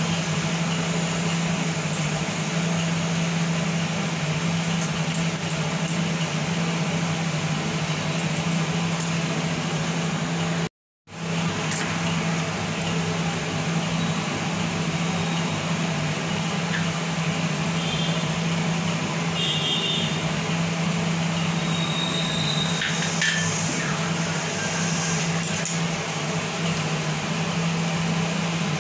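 A steady mechanical hum with a rush of air, like a running fan, with a few faint clinks past the middle. The sound cuts out completely for a moment about eleven seconds in.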